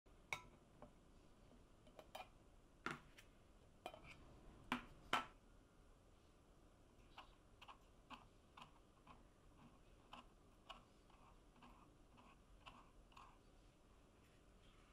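A metal teaspoon clinking and scraping in a container of hard antique wood wax: several sharp clicks in the first five seconds, then lighter, regular ticks about twice a second as the spoon digs out the wax.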